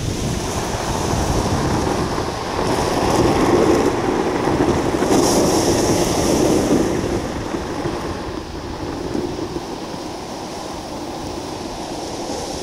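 Golf cart driving fast over a gravel driveway, its tyres crunching and scattering gravel through the turns; loudest from about three to seven seconds in.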